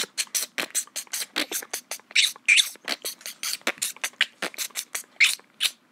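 A rapid, slightly irregular run of sharp clicks or taps, about five or six a second, with a few louder ones about two seconds in and again near the end.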